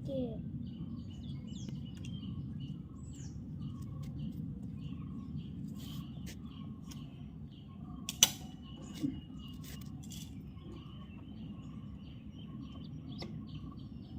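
Faint bird chirps and short whistles over a steady low background noise, with a sharp click about eight seconds in followed by a high, steady peep lasting about two seconds.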